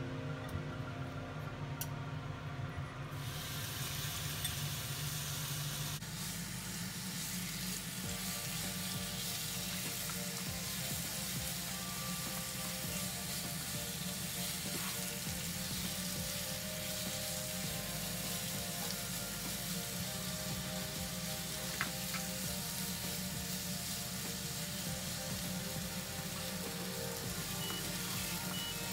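Marinated boneless chicken frying in hot oil in a frying pan, sizzling steadily from about three seconds in, and stirred as it cooks.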